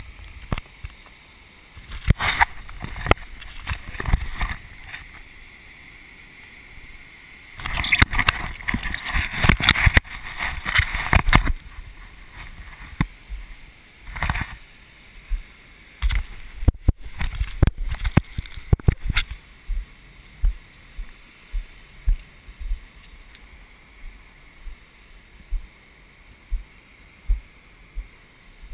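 Surf washing onto a sandy beach, with loud rushing, splashing bursts about 8 to 11 seconds in and many short sharp thumps, about one a second near the end.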